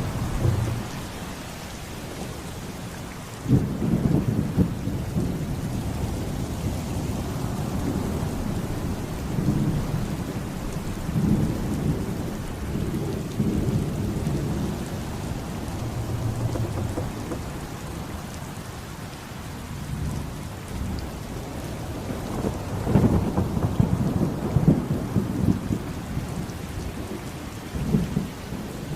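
Thunderstorm with steady heavy rain and repeated rolling thunder. A sudden clap about three and a half seconds in rolls on for several seconds, and more rumbles follow near the end.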